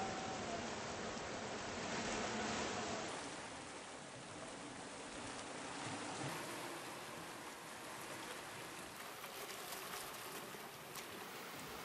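Small waves washing up a sandy beach and foaming around rocks: a steady hiss of surf that swells about two seconds in, then eases off.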